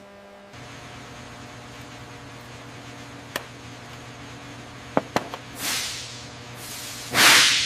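Steady low hum with a few sharp clicks, then two bursts of hiss near the end, the second one loud.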